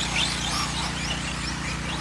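Electric 4x4 short course RC trucks racing on a dirt track: their motors and gears whine, rising and falling in pitch as they throttle on and off, over a steady low hum.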